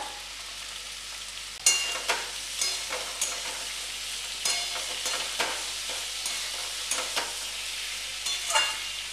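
Diced pumpkin and potato frying in mustard oil in a kadai: a steady sizzle, with a spatula knocking and scraping against the pan again and again as it is stirred, starting about two seconds in.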